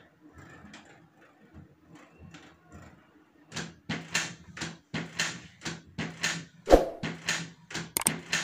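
Canon PIXMA MG2540S inkjet printer running its automatic print-head cleaning cycle: faint clicks at first, then from a few seconds in a steady run of mechanical strokes about two a second over a low hum.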